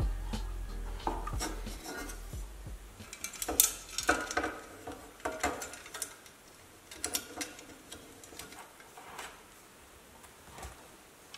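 Handling noise from tail light parts on a wooden bench: scattered clicks, taps and light metallic clatter as the cast aluminium housing, lamp carrier and wires are moved and fitted. The clatter is busiest a few seconds in and thins out toward the end.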